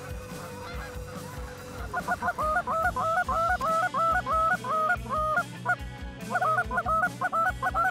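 Canada geese honking: a fast run of sharp honks, about three a second, starting about two seconds in, with a brief pause a little past the middle. Faint background music lies under the first two seconds.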